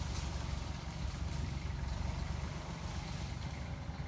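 A low, steady rumble with no distinct events.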